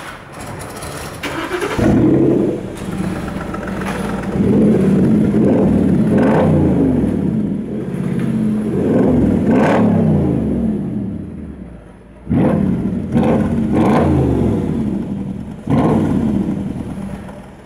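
Mercedes-Benz G500's V8 free-revved while standing, heard through a Fili-Tek sport exhaust with side-exit tailpipes: about six throttle blips, each rising and falling in pitch, with the engine dropping back to idle between them.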